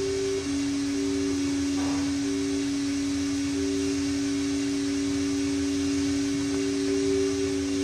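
A steady hum of two held tones over an even hiss, the higher tone fading in and out.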